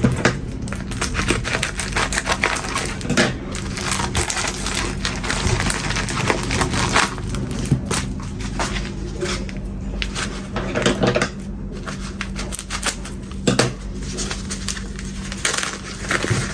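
A parcel being opened and unwrapped by hand: irregular crinkling, rustling and scraping of the packaging, with many sharp clicks and small knocks as the contents are handled.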